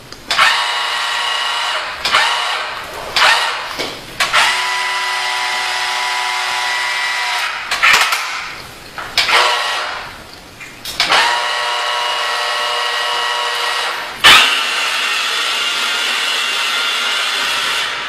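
A remote-control toy forklift's small electric gear motors whining. The whine runs in stretches of one to four seconds, stopping and starting sharply again several times.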